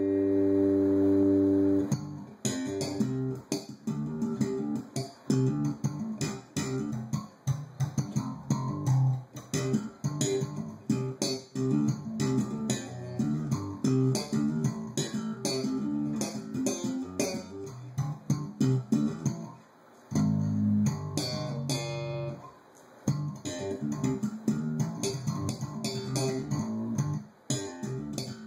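Electric bass guitar played through a custom 12-inch bass cabinet fitted with a new RCF 12G301 ceramic-magnet woofer: a held note for the first two seconds, then quick plucked notes and runs with short breaks.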